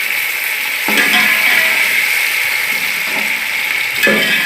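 Tomatoes sizzling in hot oil with browned onions and ginger-garlic paste, being stirred in the pot: a steady frying hiss, with two sharper knocks of the spoon against the pot about a second in and near the end.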